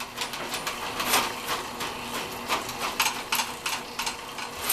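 Powered sewer snake (electric drain auger) running, its motor humming steadily while the turning cable clicks and rattles irregularly, about three times a second. The cable is turning freely, probably past the main blockage in the drain.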